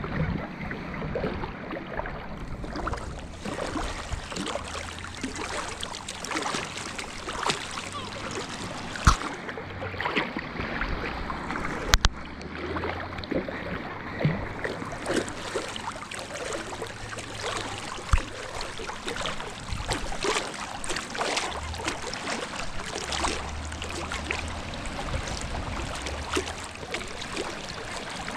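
Sea water lapping and splashing close by around a fishing float tube, with a few sharp knocks and an on-and-off low hum under it.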